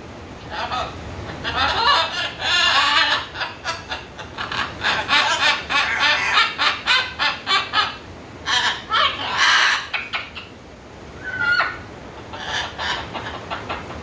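Pet macaws, a blue-and-gold and a scarlet, chattering in quick mumbled bursts of talk-like sounds, with a few brief pauses.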